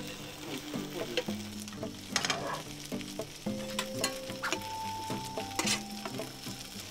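Julienned potato strips sizzling in hot oil in a frying pan as they are tipped in from a plate and pushed about with a slotted spatula, with a couple of louder crackling flare-ups. Soft background music underneath.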